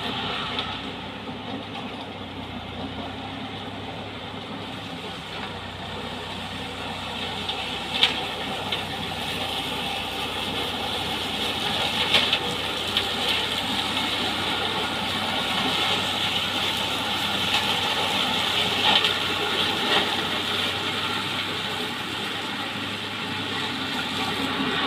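Massey Ferguson 3070 tractor running steadily under load while its rear-mounted mower cuts a standing crop, with a few sharp clicks.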